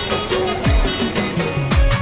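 Background music with a steady beat: deep bass drum hits that drop in pitch about once a second, under a plucked-string melody.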